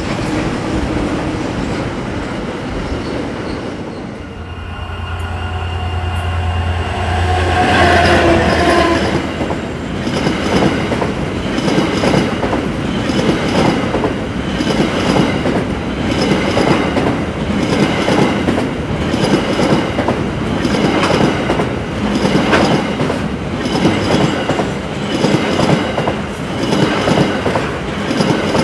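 A diesel-hauled freight train passing close. About four seconds in, the locomotive goes by with a strong low engine drone. After that, container wagons roll past with a steady, regular clickety-clack of wheels over rail joints and some high-pitched wheel squeal.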